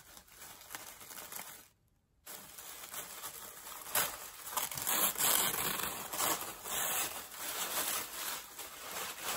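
Tissue paper crinkling and rustling as it is unfolded and lifted out of a gift box. There is a brief pause about two seconds in, after which the rustling is louder.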